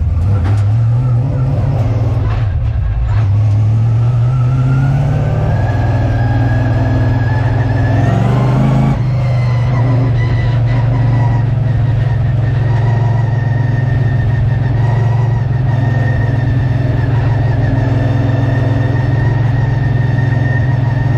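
V8 engine of a Late Model oval race car heard from inside the cockpit, accelerating with its pitch climbing over several seconds. The pitch dips briefly about nine seconds in, then the engine holds steady at high revs.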